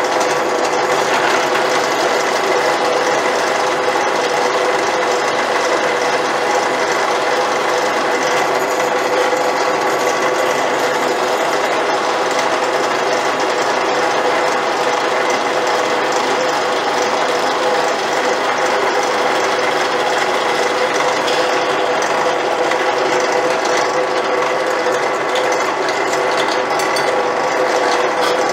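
Benchtop drill press running with a steady hum, its large metal-cutting twist bit boring into a block of wood.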